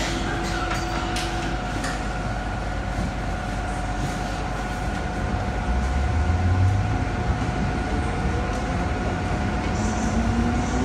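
MTR M-Train electric multiple unit pulling away from a station, heard from inside the car. Under the running noise is a steady electrical hum. A low rumble rises as the train gets moving about halfway through, and a whine climbs slowly in pitch near the end as it picks up speed.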